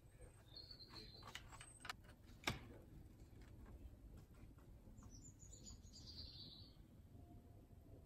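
Quiet outdoor background with faint bird chirping, two short high phrases. A few light clicks, and one sharper tap about two and a half seconds in.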